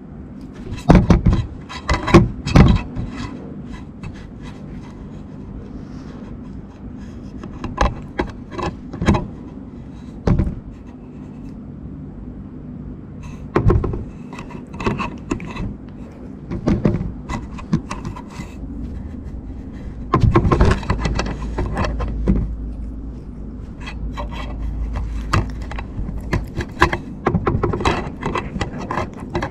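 A cat rubbing its face, chin and fur against a GoPro camera, heard right on the camera's microphone as scratchy rubbing and scraping broken by irregular sharp knocks, with a louder stretch of low, muffled rumbling about two-thirds of the way through.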